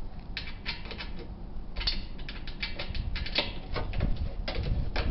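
A 1/4-inch driver turned by hand, backing screws out of a washer's sheet-metal panel: a run of short, irregular clicks and creaks.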